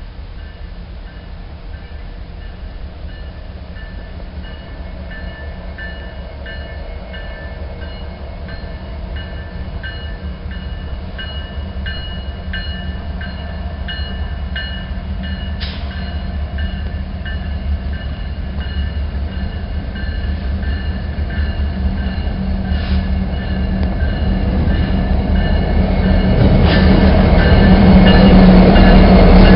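Diesel-electric freight locomotives approaching and passing close by, their low engine rumble growing steadily louder and loudest near the end as the units go past. A bell rings repeatedly throughout, with a few sharp clicks.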